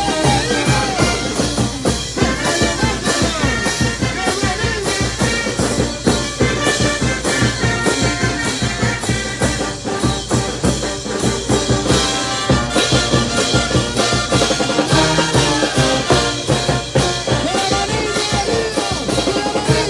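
Peruvian brass band playing an instrumental passage with no singing: trumpets, trombones and sousaphones over crash cymbals and a bass drum keeping a steady beat.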